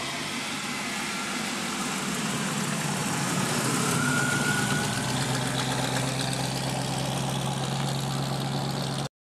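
Hot rod coupe's engine running at low speed as the car drives past, loudest as it goes by about four seconds in, then a steady low hum as it pulls away. The sound stops abruptly near the end.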